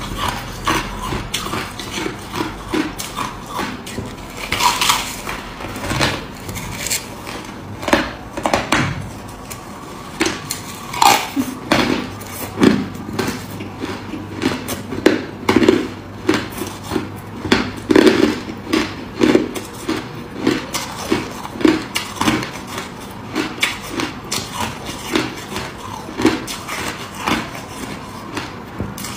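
Close-up crunching of crushed ice being chewed: a rapid run of crisp cracks and crackles, several a second, some sharper and louder than others.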